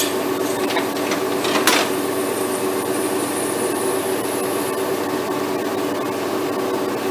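Index B30 automatic screw machine running with a steady mechanical hum, a sharp click about a second and a half in, and a faint high whine that fades out past the middle.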